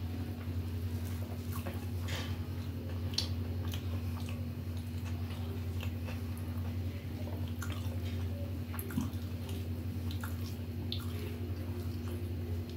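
Soft wet squishes and small clicks of fingers tearing a masala dosa and mixing rice with sambar on a steel plate, over a steady low hum.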